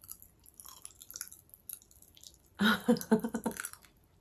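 Cola popping candy crackling and popping in the mouth: many small, scattered sharp pops. About two and a half seconds in, a short burst of voice, the loudest sound.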